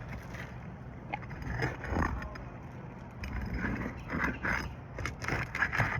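A metal pry tool scraping and crackling against asphalt shingles in short, irregular strokes as the shingles are worked loose to get at their nails.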